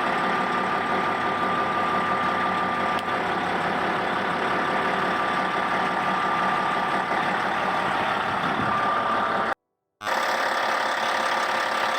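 Caterpillar D8T bulldozer's diesel engine running steadily at idle, with a steady whine over the engine noise. The sound cuts out for a split second about ten seconds in.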